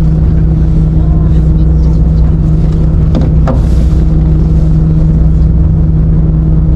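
A fishing boat's engine running at a steady, loud drone, with a short, brief noise about three seconds in.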